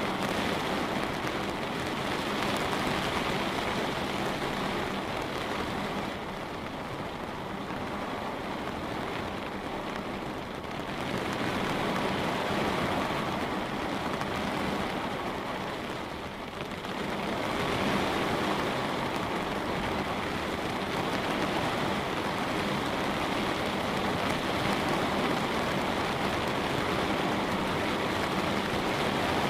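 Steady light rain pattering on a window, swelling and easing slightly in intensity.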